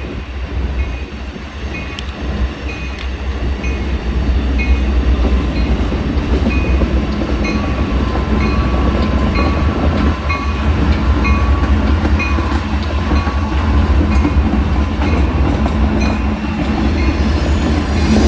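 Freight train rolling past, a heavy low rumble with wheel clatter that grows louder over the first few seconds and then holds steady. A faint short high tone repeats about once a second.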